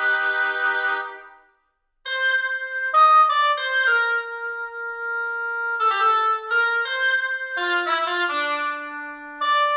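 Sampled woodwind instrument from the Spitfire Studio Woodwinds library: a held note fades out over about a second and a half. After a short gap, a melodic phrase of connected single notes follows, stepping up and down in pitch.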